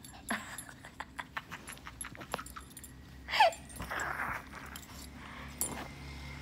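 Small dogs scrambling against the phone, with scattered clicks and rustling, and one short falling whine about three seconds in, followed by a brief breathy huff.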